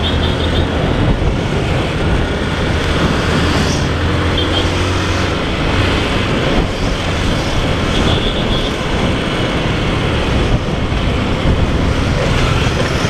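Yamaha Factor 125's single-cylinder four-stroke engine running steadily as the motorcycle rides along in traffic, under a constant rush of wind and road noise on the microphone.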